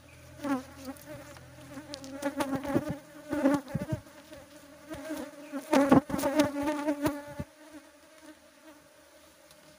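Asian honeybees (Apis cerana) buzzing as they fly close past the microphone, the pitch wavering with each pass; the buzz comes and goes several times, is loudest about six seconds in, and dies away shortly after seven seconds.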